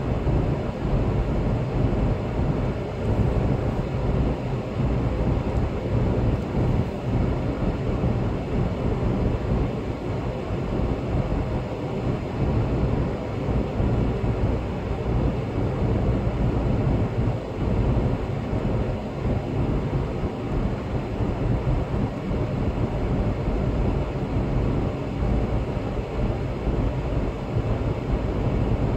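Steady road noise of a vehicle driving at speed on a highway: a continuous low rumble of tyres and wind with a faint engine hum underneath.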